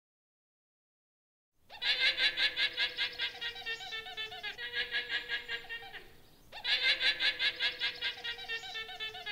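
Guanaco calling: high-pitched calls made of rapid pulses, about five or six a second. Two calls, the first starting about a second and a half in and fading over about four seconds, the second starting near seven seconds.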